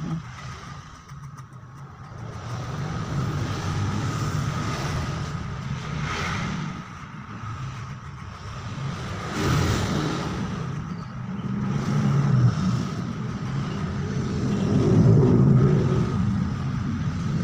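Electric hair clipper buzzing as it cuts the short sides of a haircut. It runs steadily, growing louder and softer over a few seconds at a time.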